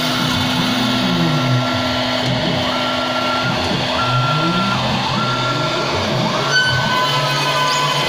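Stepper motors of a five-axis CNC machine whining as the axes move. Their pitch climbs, holds steady and falls again about once a second as each move speeds up and slows down.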